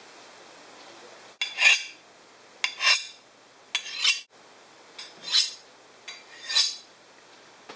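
A knife blade drawn along a steel honing rod five times, each stroke a short click as the blade meets the steel followed by a bright metallic scrape about half a second long.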